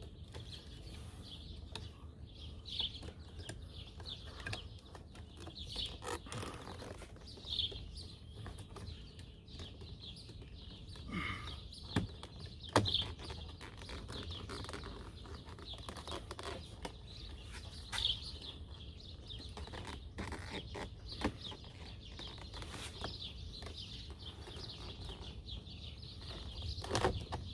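Birds chirping every second or two, with scattered sharp clicks and knocks as the plastic door-handle parts and connector are fitted into a car door; the loudest clicks come about halfway through and again near the end.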